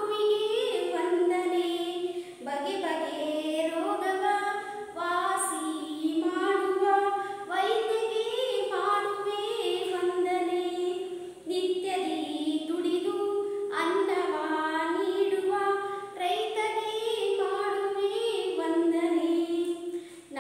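A woman singing a Kannada children's poem to a simple tune without accompaniment, line after line, with short breath pauses between lines.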